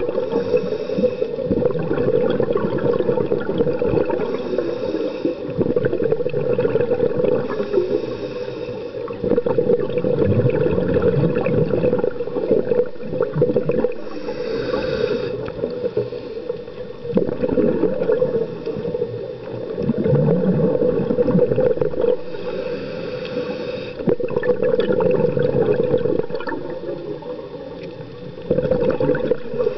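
Scuba breathing underwater through a regulator: a short hissing inhale every few seconds, followed by the bubbling gurgle of exhaled air.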